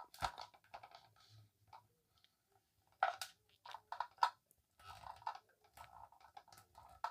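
Irregular small clicks and scrapes of plastic parts being handled as the refill hose is pushed onto a new toilet fill valve, in two busier spells in the second half.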